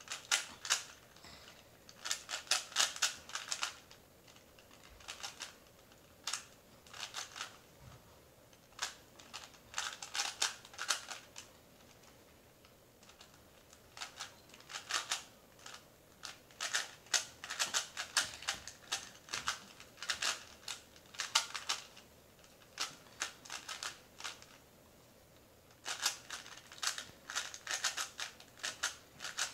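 Plastic 3x3 Rubik's cube being turned by hand: quick runs of sharp clicking as the layers rotate, each run a second or two long, separated by short pauses.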